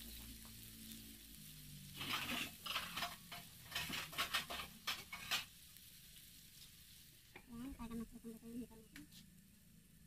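Shrimp frying and sizzling in a pan, with a run of sharp clatters and scrapes about two to five seconds in.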